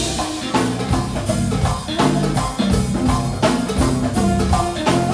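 Music with drums and guitar playing at a steady beat.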